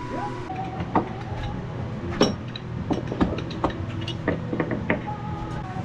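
Scattered knocks and clatter of tools and objects being handled and set down on shelving, over a steady low hum.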